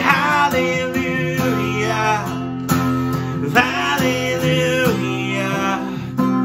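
Acoustic guitar strummed steadily under a man and a woman singing a worship song together in a slow, sustained melody.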